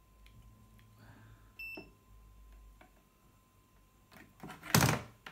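Digital multimeter giving one short high beep as its rotary dial is switched to diode mode, with faint clicks of the dial and test leads being handled. A brief, louder knock near the end.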